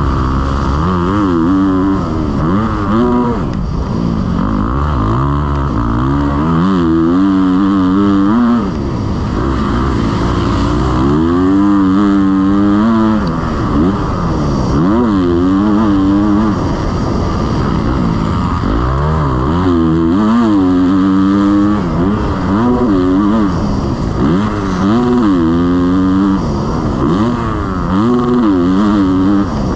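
Motocross bike engine under race throttle, its revs repeatedly climbing and falling as the rider accelerates, shifts and backs off.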